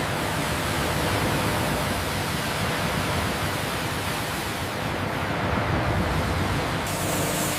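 Steady, loud rushing noise of sawmill machinery, with no clear rhythm. Near the end the sound changes and turns brighter and hissier.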